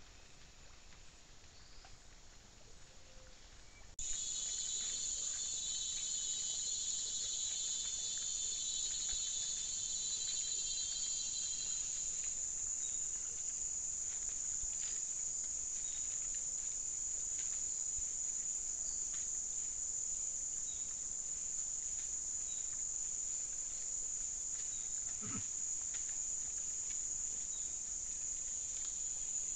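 A steady, high insect drone, cicada- or cricket-like, starts suddenly about four seconds in and carries on throughout, with a pulsing trill under it for several seconds. Soft scattered clicks and rustles come from peccaries rooting and stepping through dry leaf litter and twigs, and one brief low sound comes near the end.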